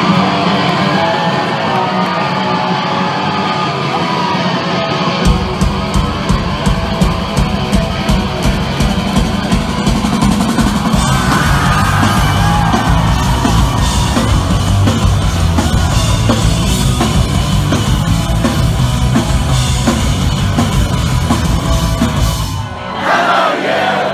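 A pop-punk band playing loud through a concert PA, heard from the crowd. Electric guitars open, and drums and bass come in about five seconds in. The music breaks off near the end, with yelling over it.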